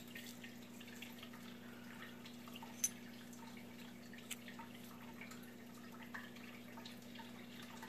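Faint, scattered small clicks of greased drag washers from a Daiwa Steez SV TWS reel's drag stack being handled and separated, with a sharper click about three seconds in and another about a second later. A steady low hum runs underneath.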